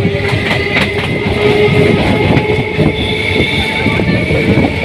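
Electric local train running along the line, heard from on board: a steady rumble of wheels on the rails with occasional clicks and a steady high whine.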